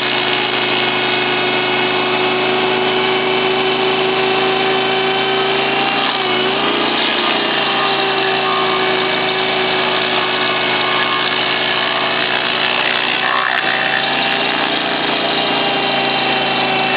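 Bandit 2250XP stump grinder's 27 hp Kohler petrol engine running steadily, its pitch sagging briefly about six seconds in.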